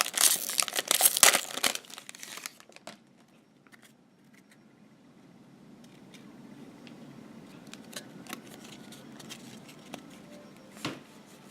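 Trading card pack wrapper crinkling and tearing open for about two and a half seconds, then faint scattered ticks as the cards are handled.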